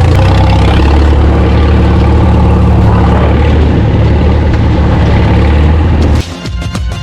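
Engine of a piece of farm equipment running steadily at constant speed. About six seconds in it cuts off abruptly to music with a drum beat.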